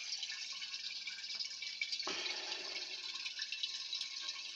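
Small permanent-magnet DC motor from a hand blender, running steadily on low DC voltage as an overhead stirrer, its shaft churning liquid in a glass flask, with faint ticks and light rattling and a soft knock about two seconds in.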